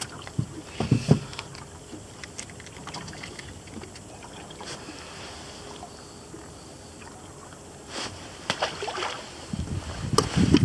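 Handling noises in a small fishing boat: scattered sharp knocks and clicks over a faint wash of water lapping against the hull, with low rumbling coming in near the end.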